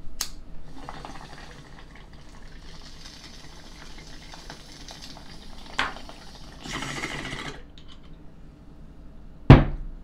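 A lighter clicks, then water bubbles in a glass bong as smoke is drawn through it, with a louder burst of bubbling about seven seconds in. A loud, sharp knock near the end.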